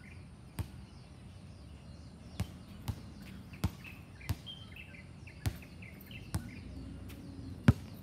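Basketballs bouncing on a hard court: about eight sharp thuds at uneven intervals, the loudest near the end. Birds chirp now and then over a steady low background rumble.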